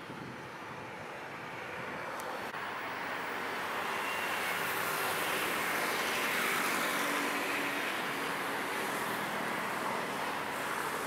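A passing train's running noise, building up to a peak about six seconds in and staying loud.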